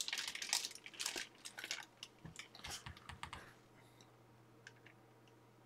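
Clear plastic sleeve around a baseball bat crinkling and crackling as the bat is handled, in quick irregular crackles that die away after about three and a half seconds, leaving a few faint ticks.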